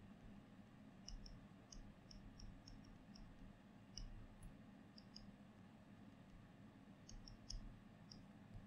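Faint, irregular clicks of a pen stylus tapping the tablet surface while handwriting, in small clusters, over a low steady background hum.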